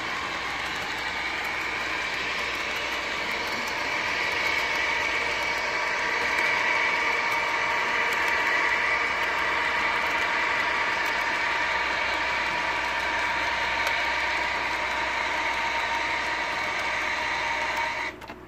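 Model freight train rolling past on curved sectional track: the steady running noise of its wheels and cars, which cuts off suddenly near the end as the train stops.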